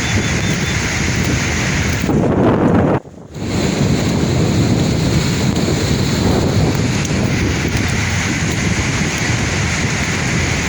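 Sea waves washing in steadily with wind buffeting the microphone; one wave swells louder about two seconds in, then the sound cuts out abruptly for a fraction of a second before the surf continues.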